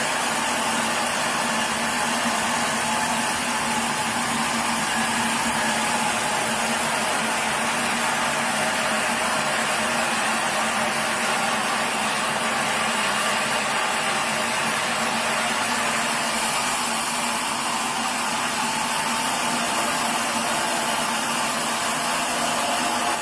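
Sawmill machinery running steadily: a constant low hum under a loud, even whir.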